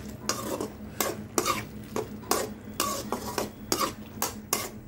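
A perforated metal ladle stirring chicken in gravy in a metal kadai: repeated scrapes and clinks against the pan, about two a second and irregular.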